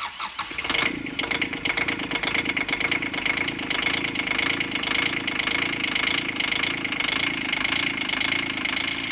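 719cc three-cylinder turbo diesel engine starting up and then running steadily, with a fast, even rhythm after about the first second. This is its first start after the injection system was bled of air and the injector pump timing advanced.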